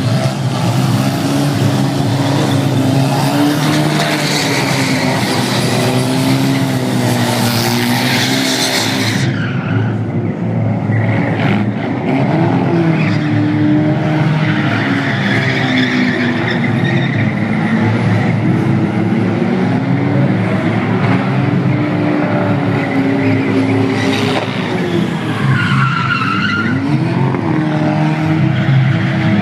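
Car engine revving loudly and continuously, its pitch rising and falling again and again over a hissing noise that fades in the upper range about nine seconds in.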